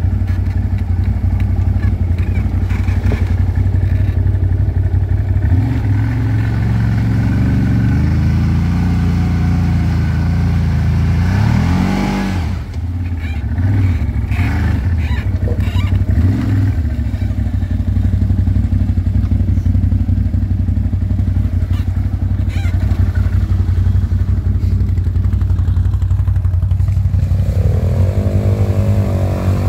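ATV engine running steadily under way, its pitch dipping and coming back up about halfway through, then climbing in a rev near the end.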